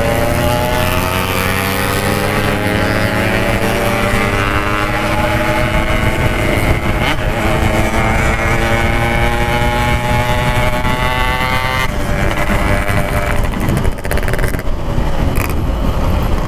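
Yamaha RX-King 135cc two-stroke single-cylinder motorcycle with a Packing Power exhaust, ridden under power: the engine note climbs steadily for about twelve seconds, then drops suddenly. Heavy wind rumble on the microphone.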